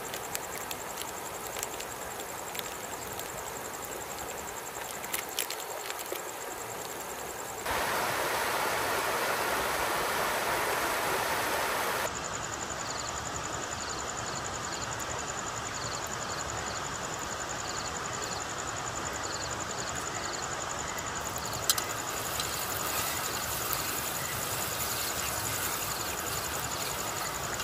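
Ginger-garlic paste and whole spices sizzling in hot oil in a pot over a campfire, with a steady high insect trill behind. The sizzle is louder for a few seconds near the middle.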